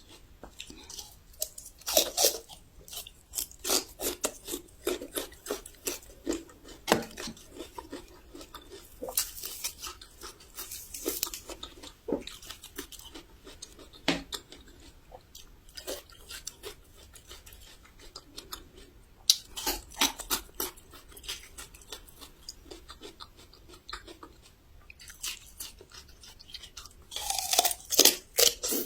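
Raw Shandong yellow ginger being bitten and chewed, with crisp crunches. Loud clusters of crunching bites come about every eight to ten seconds, with quieter chewing between.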